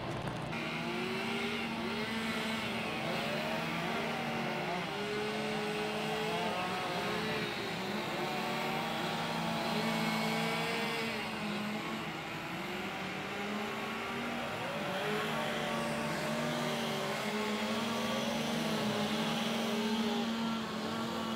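Several small motors running together, their pitch wavering up and down continually over a steady underlying drone.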